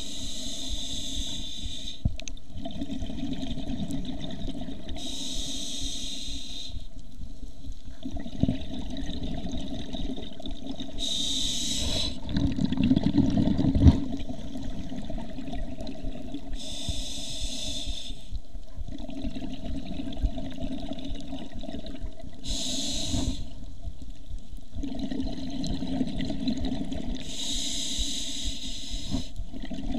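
Scuba diver breathing through a regulator underwater. A hissing inhale comes about every five to six seconds, six in all, and each is followed by a low stream of exhaled bubbles. The bubble stream is loudest just before the middle.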